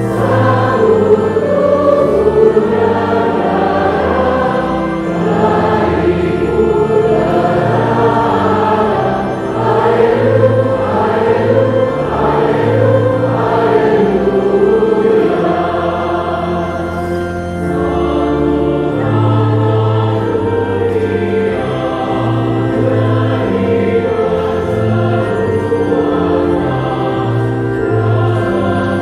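Church choir singing a slow hymn during Mass, over held bass notes that change in steps.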